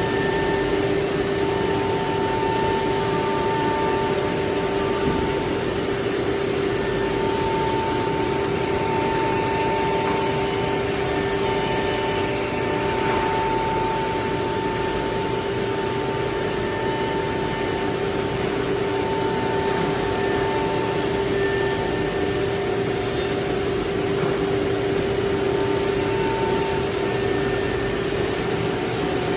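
CNC nesting router line running: a steady machine noise with a constant hum, and several short hisses scattered through it.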